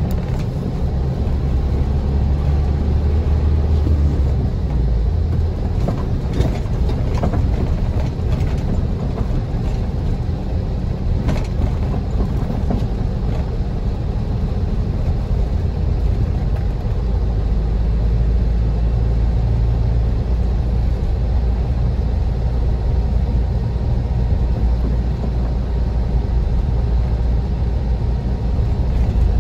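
Car driving on a rough, snow-rutted road: a steady low rumble of engine and tyres, with a few knocks as the car jolts over the ruts.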